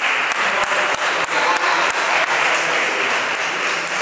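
Table tennis rally: the celluloid ball clicking off the bats and the table about three times a second, stopping a little over two seconds in. Behind it is a steady background din from the hall.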